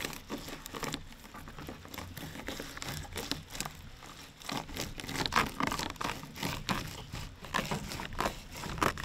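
Fillet knife sliding and scraping between a barracuda fillet's skin and meat to skin it, a run of irregular scraping and tearing strokes with some rustling, loudest about halfway through.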